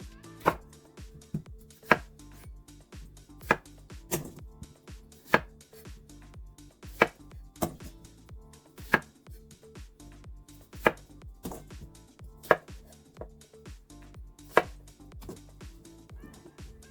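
Kitchen knife cutting through food onto a cutting board in slow, irregular strokes, about one every second or so.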